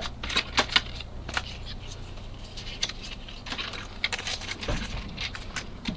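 Irregular small clicks, taps and rustles of items being handled close to the phone's microphone, over a low steady hum.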